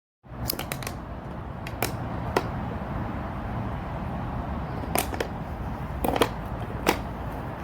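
Damascus steel folding pocket knife being handled, opened and closed, giving about ten sharp, short clicks at uneven intervals over a steady low hiss.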